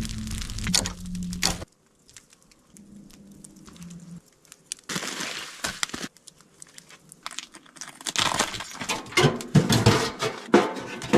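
A run of short clips of crunching, crackling and snapping handling sounds, broken by abrupt cuts with quieter gaps between. The busiest, densest crackling comes near the end.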